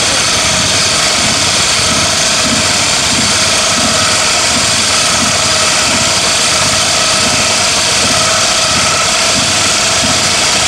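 Argo amphibious vehicle's engine running steadily and loudly while the machine sits stuck in deep mud.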